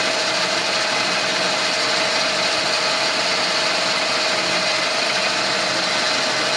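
CORMAK HBS350N band saw running steadily, its 1.1 kW motor and blade giving a constant, even machine noise with a steady tone through it.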